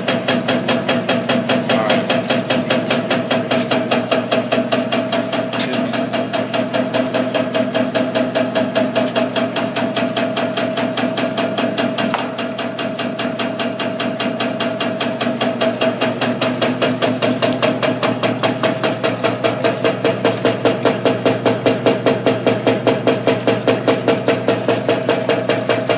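Action Mining Micron Mill wave table running: a fast, even rhythmic knocking from the drive shaking the water-covered deck, over a steady motor hum.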